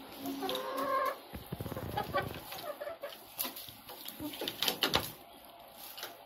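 Hens clucking, with one drawn-out call in the first second, followed by many short clicks and rustles of beaks pecking at a feed bowl and in the straw.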